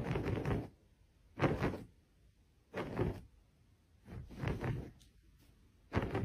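Fingers scratching a shaggy rug in five short bursts, about one every second and a half.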